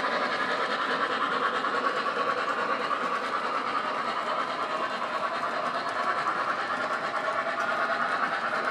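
Model freight cars of an O-gauge train pulled by an MTH Imperial N&W J 611 rolling steadily past on the track, a constant rumble and clatter of wheels.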